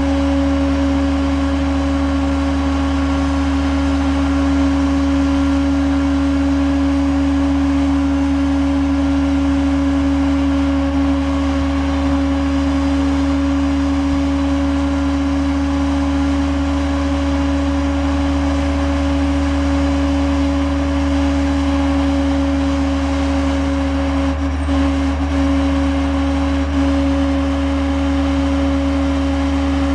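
International DT466 six-cylinder turbo diesel running steadily with the PTO engaged to drive the bucket lift's hydraulics, a steady hum with an even whine over it while the HI-Ranger boom is worked.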